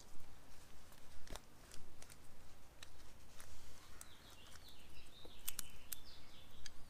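Scattered light clicks and knocks of suspension parts being handled as a metal sleeve is pressed into a greased polyurethane control-arm bushing by gloved hands, with faint high chirps in the background.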